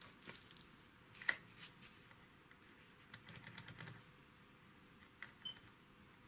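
Metal multimeter test probes clicking and scraping against solder joints and connector pins, a few faint separate taps with a louder click about a second in and a quick run of clicks later. Near the end the meter gives a very short, high continuity beep as a probe touches a connected pin.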